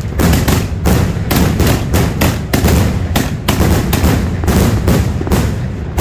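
Multi-shot firework cake firing, a shot about every half second over a continuous low rumble, until the shots stop right at the end.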